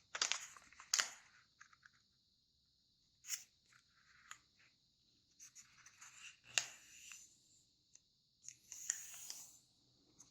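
Square of origami paper being folded along a diagonal and creased: scattered sharp crackles and crinkles of the paper, with a longer rustle near the end.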